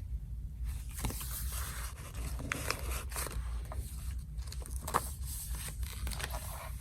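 Paper pages and tags of a handmade junk journal being handled and turned: rustling and scraping, with scattered small clicks and taps, one more distinct about a second in and another near five seconds.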